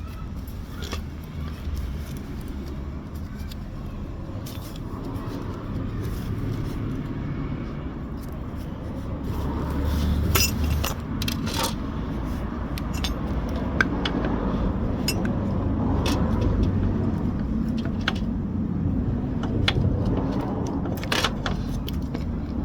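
Metal tools and sidestand parts clinking and scraping in short, scattered clicks while the motorcycle's sidestand is being refitted, over a steady low rumble.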